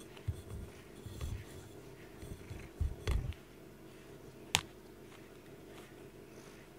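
A cat rubbing and bumping against the camera makes a series of dull low thumps, with one sharp click about four and a half seconds in, over a steady low hum.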